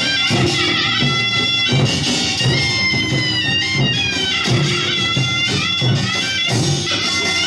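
Korean pungmul folk band: a taepyeongso (Korean shawm) plays a loud, nasal melody in long held notes over a steady drum beat.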